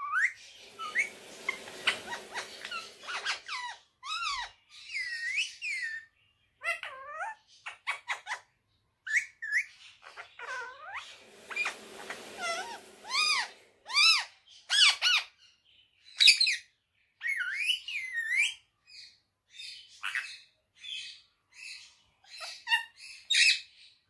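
Indian ringneck parakeet calling: a quick run of short chirps, arched whistles and squawks, with two longer, harsher and noisier stretches, one in the first few seconds and one about halfway through.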